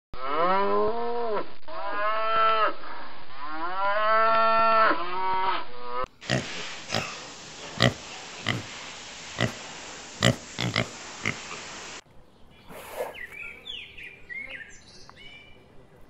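Cows mooing: three long moos, each rising then falling in pitch, and a shorter one. Then piglets squealing in short, sharp cries over a steady hiss, and in the last few seconds faint bird chirps.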